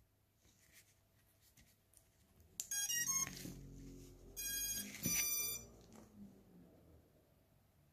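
Beta85X HD whoop drone's brushless motors playing the ESC power-up tones as the battery is connected: a quick run of short beeps about three seconds in, then two longer beeps about a second later.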